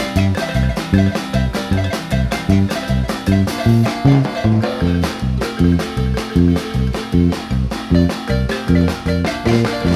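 Guatemalan marimba band playing an upbeat dance tune over a strong bass line and a steady beat.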